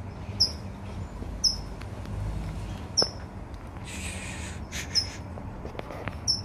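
A small bird chirping repeatedly: about five short, high chirps, one to two seconds apart. A brief rustling noise about four seconds in.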